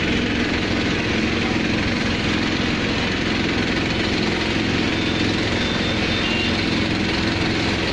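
A vehicle engine idling steadily under a constant haze of noise.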